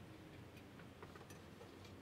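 Near silence: room tone with a few faint, scattered ticks and clicks.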